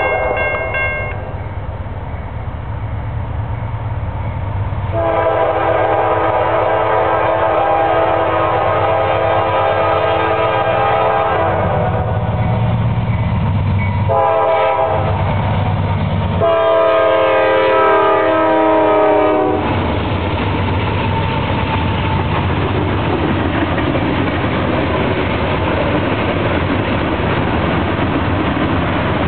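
Norfolk Southern diesel locomotive horn sounding the grade-crossing signal over the low rumble of the engines. A long blast fades out in the first second, a second long blast lasts about seven seconds, then comes a short blast and a final long blast of about three seconds. The loaded coal train then passes at speed, a steady loud rush of wheels on rail from the hopper cars.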